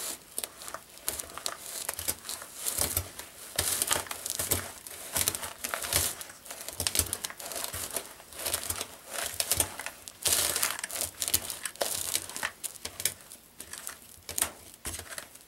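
A spoon stirring stiff oatmeal cookie dough in a plastic tub, making irregular scraping and crinkling strokes with occasional dull knocks, as extra flour is worked into the sticky dough.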